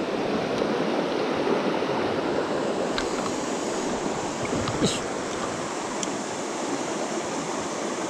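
Shallow mountain stream rushing steadily over stones, close to the microphone. A couple of brief sharp sounds stand out over the water about three and five seconds in.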